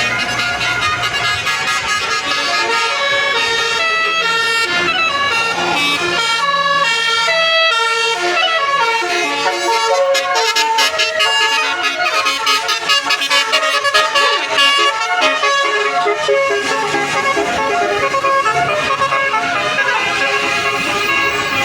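A bus's basuri telolet horn, a set of multi-tone air horns, playing a fast tune of short stepped notes that keep changing pitch.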